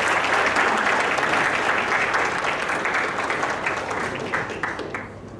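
Audience applauding, thinning to a few last separate claps near the end.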